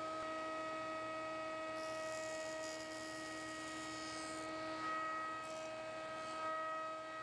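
1970s Rockwell/Delta Uniplane running with a steady high-pitched hum. A fainter hiss comes and goes from about two seconds in as a small block of wood is pushed across its cutters.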